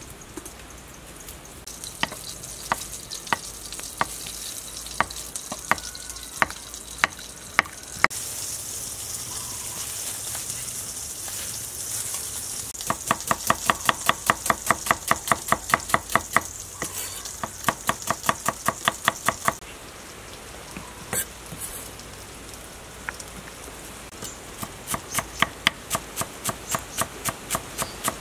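Kitchen knife chopping shallots and green onions on a thick wooden chopping board. A few spaced knocks come first, then runs of rapid, even chopping at about four or five strokes a second, with a steady high hiss behind it in the first part.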